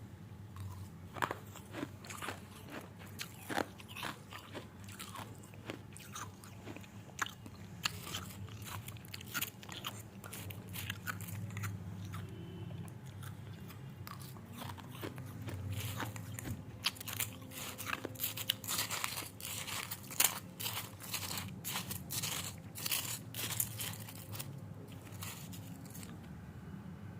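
Irregular crisp crunching and crackling clicks, coming thickest about two-thirds of the way in, over a low steady hum.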